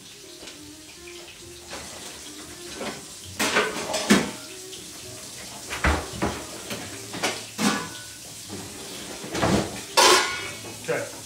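Metal pans and a utensil clanking and scraping on a gas range's grates, a dozen or so separate knocks and clinks with the loudest about four and ten seconds in.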